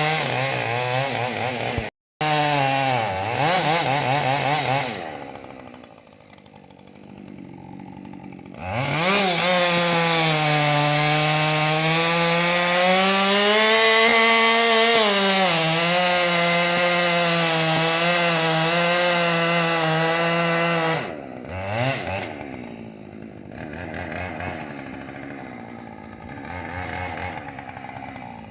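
Husqvarna two-stroke chainsaw revving and cutting wood, with a brief gap about two seconds in. It drops back to a quieter low run, then holds a long steady full-throttle cut whose pitch rises and falls slightly, and falls back to a lower, quieter run near the end.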